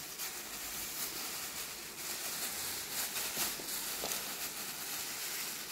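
Thin plastic bag crinkling and rustling as it is handled and shaken over scraps, a dense run of small crackles.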